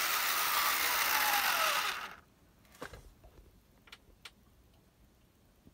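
Jouef H0 SNCF 150 X model steam locomotive running on the track: a steady whir of its small electric motor and wheels, with a whine that falls in pitch as it slows, stopping suddenly about two seconds in. A few faint clicks follow.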